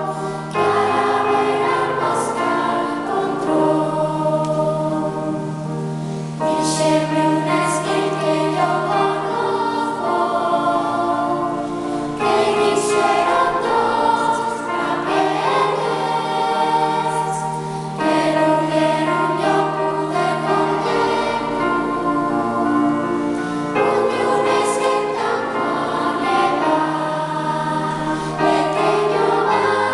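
Children's choir singing with piano accompaniment, in phrases of about six seconds.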